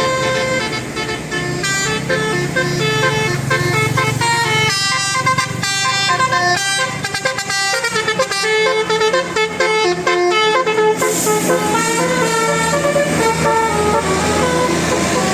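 Bus 'telolet' basuri horn, a multi-trumpet musical air horn, playing a melody of changing notes, with fast short staccato notes in the middle. A low steady hum runs underneath.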